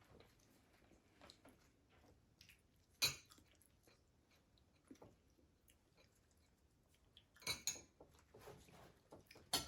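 Faint chewing with scattered small clicks: a sharp one about three seconds in and a brief cluster about seven and a half seconds in.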